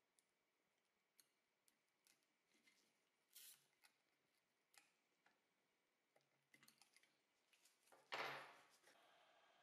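Near silence with faint scattered clicks and taps from steel tweezers and gloved hands working a small circuit board, with a brief louder rustle near the end. A faint steady hum starts just before the end.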